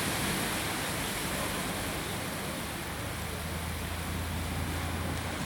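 Ocean surf washing onto a beach: a steady rushing noise, with a low hum joining about halfway through.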